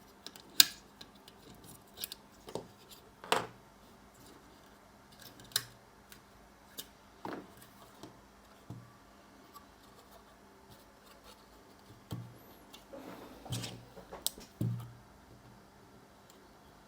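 Irregular sharp clicks and light clacks of memory modules and a coin-cell battery being unlatched and pulled from a motherboard, some with a dull knock, and a busier run of clicks and knocks near the end.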